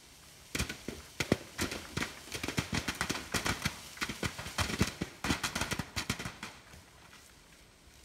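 Wild apples shaken down from the tree with a long picking pole, dropping onto a plastic tarp and the grass: a rapid, irregular flurry of thuds that starts about half a second in and thins out after about six seconds.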